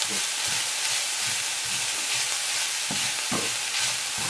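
Spinach, onions and mushrooms sizzling steadily in a frying pan over low heat while a wooden spoon stirs them, with soft scrapes and light knocks of the spoon against the pan. The spinach has just gone in and is starting to wilt.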